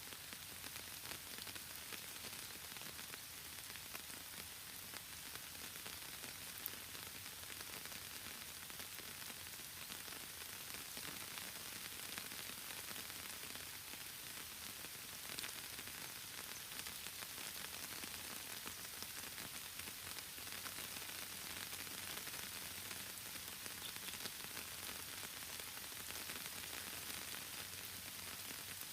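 Rain falling steadily, an even hiss with no bird calls standing out, broken by two sharp single ticks, one about six seconds in and one about fifteen seconds in.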